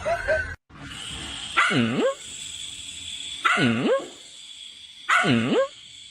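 A dog barking: three separate bark-like calls about a second and a half apart, each dipping and then rising in pitch.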